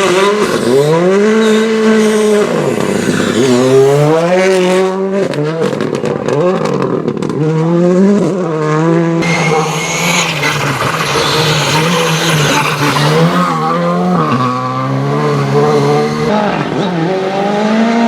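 Rally car engine revving hard, its pitch climbing and dropping again and again as it works through the gears. A run of sharp crackles and pops comes about five to seven seconds in.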